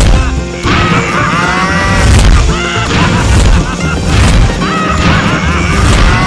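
Loud background music with repeated cow moos laid over it as sound effects, mixed with crash effects.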